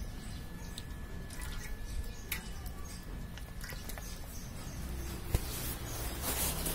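Mustard oil trickling in a thin stream into an aluminium cooking pot, a soft pouring with small drip-like clicks. About six seconds in, a brief hissing rustle of the phone being handled and rubbed against clothing.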